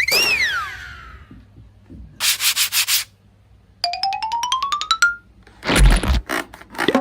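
A string of added comic sound effects: a whistle sliding up and back down at the start, a quick run of about six scratchy rubbing strokes, a tone climbing in quick even steps, then a deep thump near the end.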